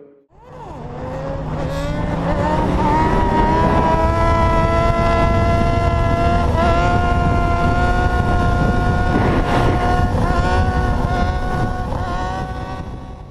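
Sport motorcycle engine pulling up through the revs over the first few seconds, then holding steady at high revs, with a few brief dips in pitch from small throttle changes. Heavy wind rush on the microphone at highway speed.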